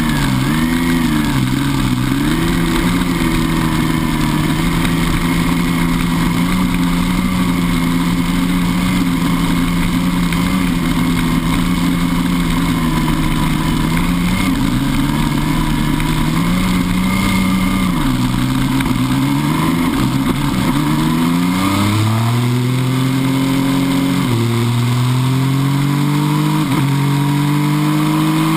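MV Agusta F3 800's three-cylinder engine running at low, uneven revs as the bike rolls slowly through a gravel trap. About three-quarters of the way in it opens up and accelerates hard, with two quick upshifts near the end.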